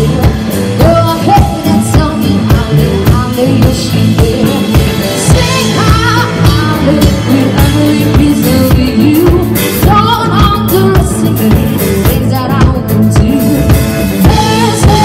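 Live pop-rock band playing, with a woman singing lead over a steady drum-kit beat, electric bass and electric guitar.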